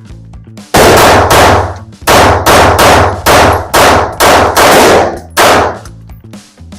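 Rapid-fire string of 9mm pistol shots from a Springfield Prodigy, about a dozen in quick succession: a mag dump, emptying the magazine as fast as the trigger can be pulled.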